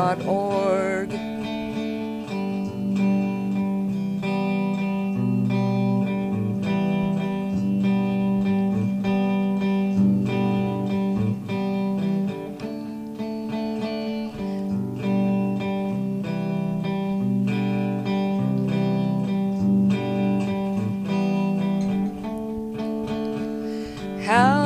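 Background music: an acoustic guitar strumming chords in an instrumental break of a folk-style song, with a singer's last line ending about a second in.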